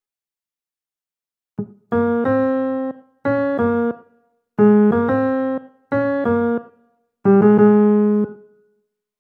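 Computer playback of a single-line vocal melody in a piano sound, as from notation software: after about a second and a half of silence, five short phrases of notes with brief gaps between them, the last note dying away near the end.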